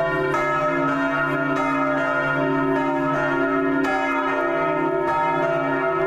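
Church bells ringing, several bells struck again and again so that their tones overlap in a continuous peal.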